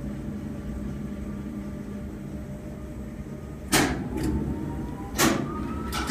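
Electric slewing drive of a 1950s wharf crane heard from the operator's cab: a steady low hum and rumble, joined in the second half by several sharp clunks from the cab controls and a faint whine that rises slowly.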